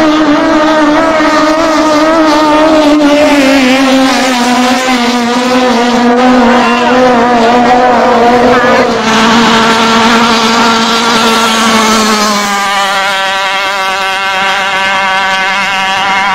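Thai drag racing boats' engines running flat out. The high engine note sinks slowly in pitch as the boats run down the course, and a second engine note takes over about three-quarters of the way through.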